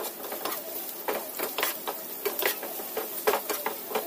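Wooden spatula stirring sliced shallots frying in oil in a nonstick frying pan: irregular scraping knocks against the pan, several a second, over a steady sizzle of the oil.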